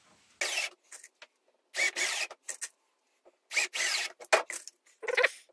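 Cordless drill-driver running in four short bursts, each under a second, driving screws into the plywood side wall of the camper body.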